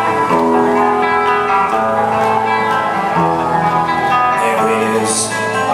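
Loud dance music from a festival stage's sound system, held chords changing about once a second over a light ticking beat.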